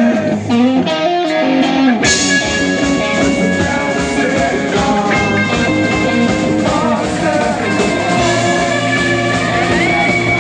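Rock band playing live: a man singing over electric guitars and drums. About two seconds in the whole band comes in louder with cymbals and long held guitar notes, and a high held note bends up near the end.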